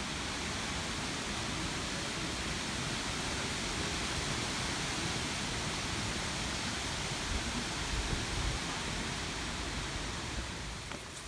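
Steady wind noise rushing over the microphone, with an uneven low rumble underneath.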